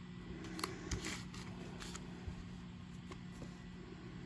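Trading cards being handled and flipped: a few short papery rustles and flicks, mostly in the first two seconds, over a low steady hum.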